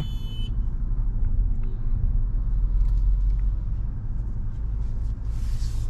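Low, steady rumble inside the cabin of a Mahindra Scorpio-N petrol automatic on the move, from its engine and road noise. A short hiss comes near the end.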